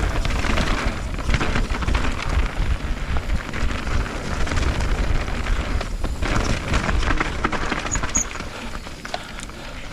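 Orbea Rise electric mountain bike riding fast down a dirt trail: tyres rolling over rough ground with many small knocks and rattles from the bike, and wind rumbling on the helmet camera's microphone.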